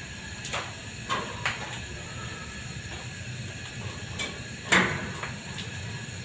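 A few sharp metal clanks and knocks as fittings are handled at a liquid-oxygen tank trailer's rear valve cabinet, the loudest about three-quarters of the way through, over a steady background hum with faint high tones.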